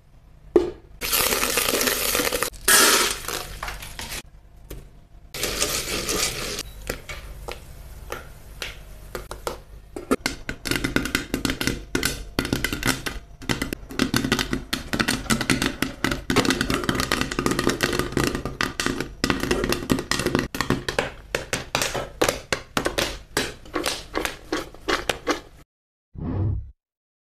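Butter sizzling loudly in a hot steel pot. Later, popcorn kernels pop thick and fast under the pot's lid as sharp, rapid cracks, until the sound cuts off. A short electronic jingle plays near the end.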